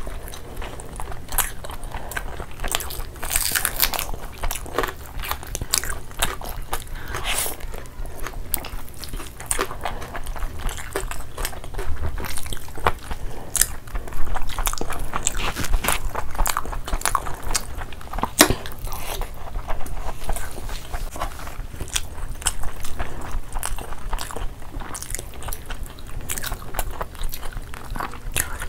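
Close-miked eating: two people biting and chewing chicken, rice and curry eaten by hand. There is a steady stream of quick wet clicks and smacks throughout.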